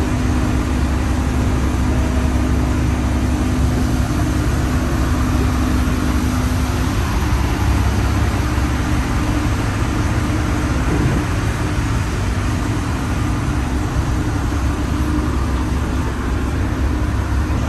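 Tour boat's engine running steadily, a low drone with a hum over a broad wash of noise; one strand of the hum drops out about seven seconds in.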